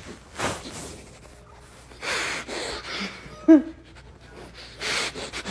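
A person sniffing hard at a dog's face close to the microphone, in several loud bursts of sniffing. A short squeaky vocal sound comes about three and a half seconds in and is the loudest moment.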